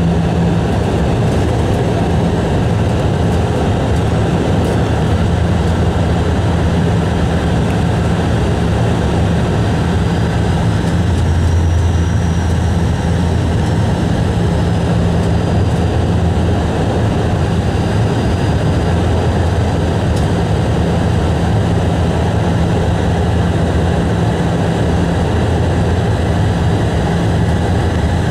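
Bombardier Dash 8 Q400's Pratt & Whitney PW150A turboprop and six-bladed propeller, droning steadily on approach, heard inside the passenger cabin beside the propeller. The low hum grows stronger for a few seconds about eleven seconds in.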